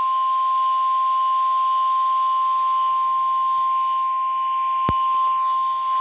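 NOAA Weather Radio 1050 Hz warning alarm tone: one steady tone held over radio hiss, with a sharp click about five seconds in. The tone signals that a warning message is about to be broadcast.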